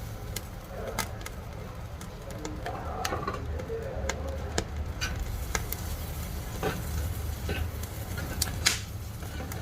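Wood fire crackling in a wood-burning stove: irregular sharp pops and snaps, the loudest one near the end, over a steady low rumble.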